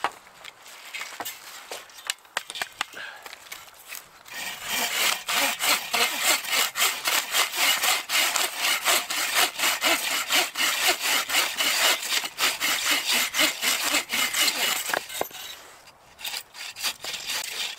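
Hand saw cutting through a dry hardwood log, mostly maple. Quick, even back-and-forth strokes start about four seconds in and stop a couple of seconds before the end, with lighter scraping and knocks before and after.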